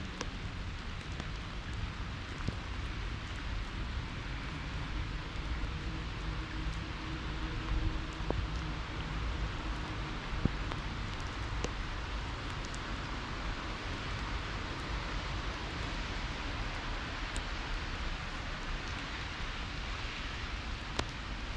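Steady rain falling on city streets, an even hiss with a low rumble underneath and a few sharp ticks scattered through it.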